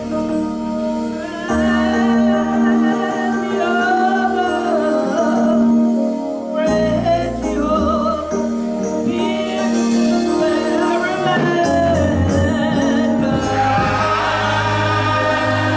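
Church choir singing a gospel song over held organ chords, with the voices coming in about a second and a half in.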